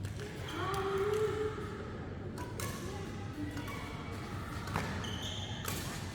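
Badminton rally: sharp racket strikes on the shuttlecock every second or two, with short squeaks of shoes on the court floor.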